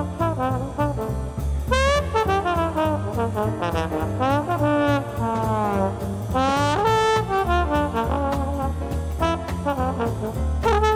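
Live small-band traditional jazz: trumpet, trombone, piano, string bass and drums. Brass lines slide up and down in long smears over a steady beat.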